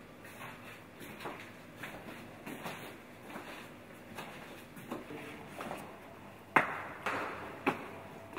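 Footsteps, faint and steady, walking through a room, with two or three sharper, louder knocks near the end.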